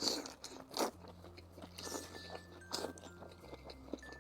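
Close-miked chewing of crayfish meat: irregular wet mouth clicks and bites, over soft background music.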